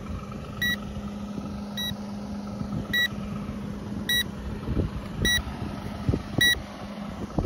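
ZLL SG908 drone remote controller beeping, a short high beep about once a second, over a steady low hum. A few soft bumps come in the second half.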